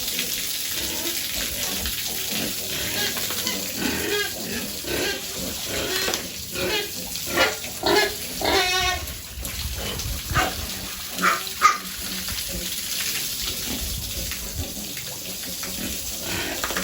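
Piglets squealing in many short, pitched calls over a steady hiss of running water. The calls are densest and loudest around the middle.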